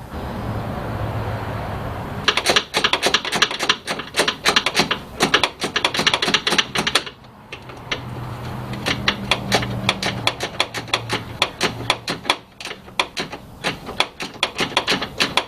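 Rapid, irregular runs of ratcheting clicks from hand work on the truck's wiring, in two stretches with a short pause about seven seconds in. A steady hiss comes first, for about two seconds.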